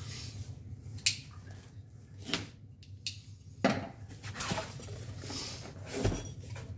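A cardboard product box being handled and opened on a plywood workbench: several sharp clicks and knocks against the wood, with cardboard rustling and scraping as the lid is pulled open near the end.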